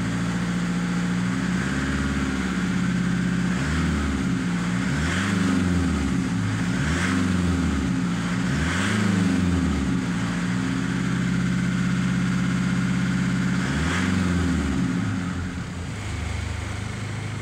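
2007 Mitsubishi Triton's 3.2-litre four-cylinder turbo diesel, heard from inside the cab, running at a raised idle and revved up and back down about six times. It settles to a lower idle near the end.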